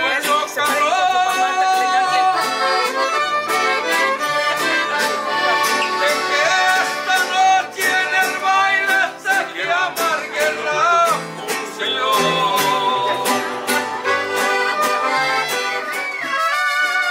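Live mariachi band playing: violins carry the melody over strummed guitars and a guitarrón keeping a steady rhythm.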